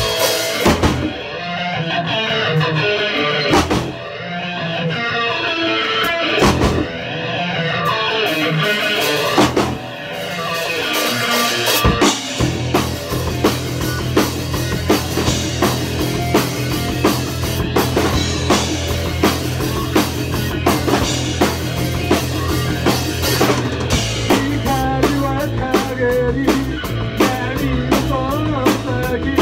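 A live rock band playing with electric guitars and a drum kit. For the first twelve seconds or so the guitars ring out, punctuated by a few single drum and cymbal hits; then the bass and drums come in with a steady driving beat.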